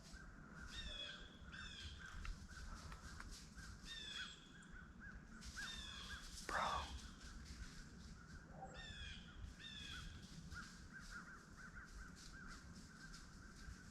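Birds calling in woodland: short, falling calls repeated every second or so, often in pairs, over a steady background chatter of small chirps. A single brief knock or rustle comes about six and a half seconds in.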